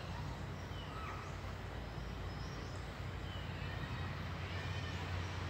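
Outdoor ambience: a steady low hum, a little stronger from about three seconds in, under faint, scattered bird chirps.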